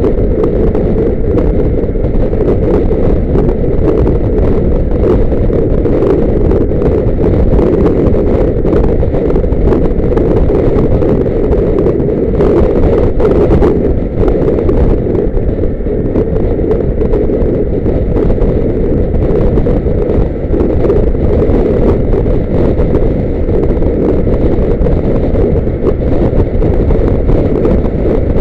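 Loud, steady rumble of a car driving, with road noise and wind buffeting the microphone.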